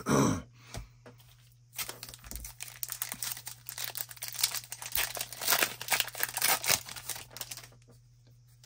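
A sports-card pack wrapper being torn open and crinkled, a dense run of crackling that starts about two seconds in and lasts about six seconds.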